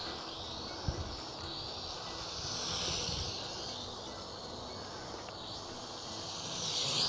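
High-pitched whine of a small toy quadcopter's motors and propellers in flight, its pitch rising and falling as it manoeuvres. It swells briefly about three seconds in and again near the end.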